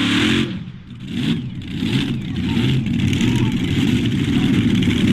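Supercharged engines of a multi-engine modified pulling tractor at full throttle, cut back sharply about half a second in. A short blip of throttle follows, then the engines idle.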